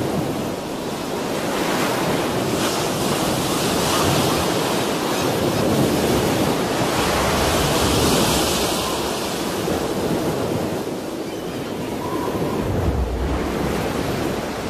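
Strong wind blowing together with ocean surf: an even rushing noise that swells over the first several seconds, eases, then rises again near the end.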